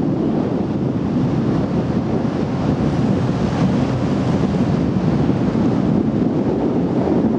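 Steady wind buffeting the microphone over the rush of water around a moving boat, with a low rumble underneath. It starts abruptly as the scene begins.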